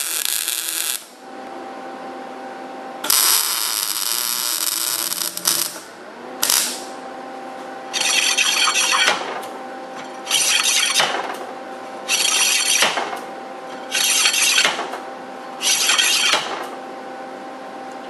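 A welding arc crackles for about a second, and a louder noise runs for a couple of seconds about three seconds in. Then the minibike's rear wheel is spun by hand, and the solid brake disc scrapes against the hydraulic caliper's pad once a turn, five times about two seconds apart. The rub is on one side, from a disc that isn't yet true and a caliper that needs reshimming.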